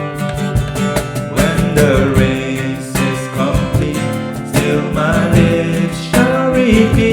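Worship song music: an instrumental passage led by guitar with a steady beat, between sung lines.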